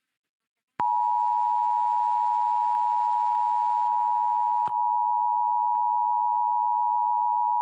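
Emergency Alert System attention signal: a steady two-tone beep of 853 and 960 Hz, starting about a second in. It announces that an alert message, here the monthly test, is about to be read.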